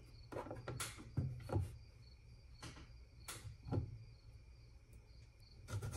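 Scattered light knocks and taps of a kitchen knife slicing a cucumber on a plastic cutting board, about half a dozen in all.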